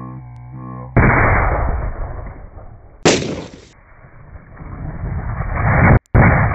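Plastic PET bottles of hydrochloric acid and aluminium foil bursting under hydrogen gas pressure: a series of loud bangs cut one after another, each dying away over a second or two, the sharpest about three seconds in. A brief tone comes before the first bang.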